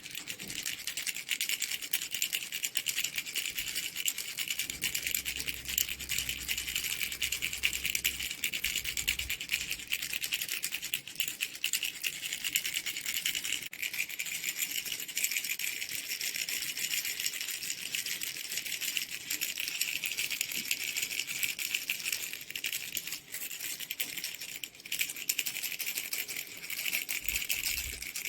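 Mango fruit baby rattle being shaken without a break: a fast, dense, high-pitched rattle that keeps going at a steady level.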